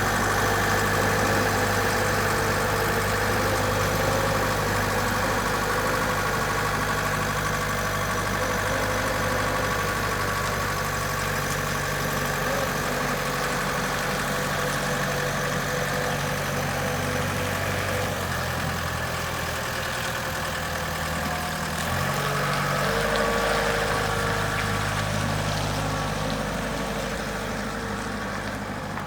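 Volvo L30B compact wheel loader's diesel engine running steadily, its pitch stepping to a new engine speed twice in the second half, then easing off near the end.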